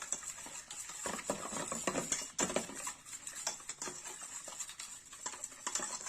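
Thick curd (yogurt) marinade with spice powders being whisked in a bowl: a fast, irregular run of wet clicks and scrapes against the bowl.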